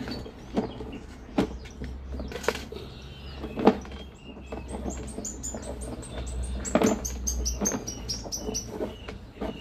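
Drain inspection camera rod being fed down the drain, with scattered knocks and rattles over a steady low hum. In the second half comes a quick run of high chirps, about five a second, falling slightly in pitch.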